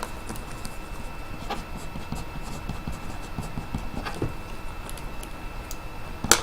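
Room tone with a faint steady high hum and a few light clicks, one about a second and a half in and another near four seconds.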